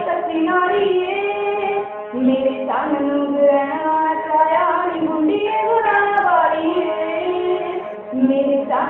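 A young woman singing a melodic song with long held and sliding notes, played back from an online video, the sound dull with no treble.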